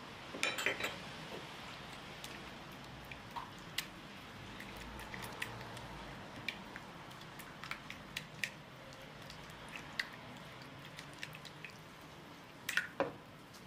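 Silicone spatula mashing and stirring soft butter pieces into oil in a wooden bowl: soft squishing with scattered light clicks. A cluster of louder knocks comes about half a second in and again near the end.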